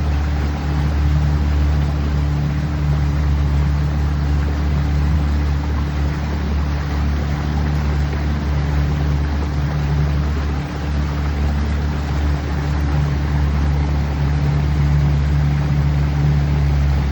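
Boat motor running steadily at constant speed, a low even engine hum under a continuous rush of wind and water noise.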